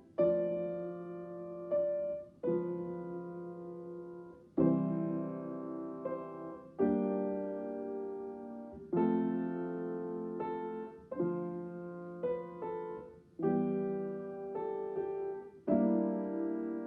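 Piano played slowly, a new chord or note group struck about every two seconds and left to ring and fade before the next.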